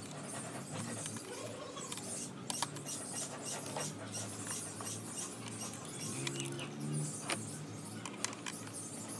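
Scattered clicks and light metallic clinks of pliers and fingers working hose clamps and plastic connectors in a car engine bay, over a faint steady background hum.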